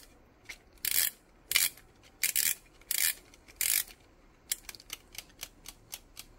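Ratchet of a 3D-printed plastic tourbillon watch movement model rasping in short strokes, about one every two-thirds of a second, as its metal mainspring is wound by hand. About four and a half seconds in, the plastic escapement is let go and starts ticking quickly, about six ticks a second.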